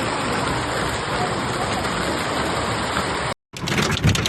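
Heavy hail and rain falling in a steady hiss. After a sudden cut near the end, a denser clatter of many hailstones striking.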